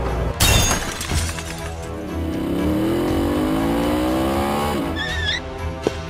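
Added cartoon vehicle sound effects over background music: a sudden loud crash-like burst, then a rising engine-rev sound that cuts off suddenly near the end, followed by a brief wavering squeak.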